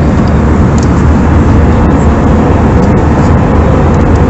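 Steady cabin noise of an Airbus airliner in cruise: an even rush of airflow and engine noise, heard from a passenger seat inside the cabin.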